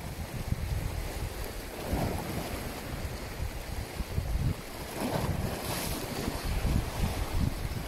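Wind buffeting the microphone in uneven gusts, with sea waves washing and lapping; a brief hiss of splashing water a little before the end.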